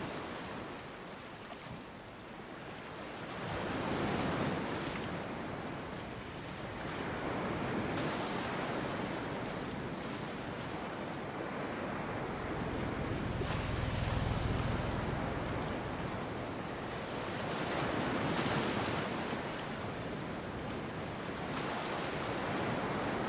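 Ocean waves breaking: a rushing surf noise that swells and fades every four or five seconds.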